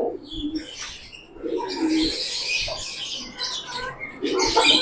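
Pigeons cooing, mixed with irregular chirps from other birds.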